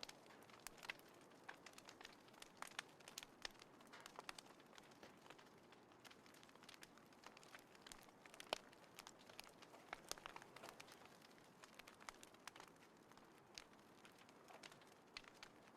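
Small wood fire burning in a compact folding fire pit, crackling faintly with irregular sharp pops over a soft hiss; one louder pop about halfway through.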